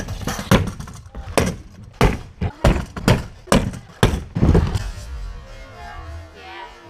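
A stunt scooter's deck and wheels knocking and landing on wooden skatepark ramps: a quick run of sharp knocks over the first few seconds, then quieter.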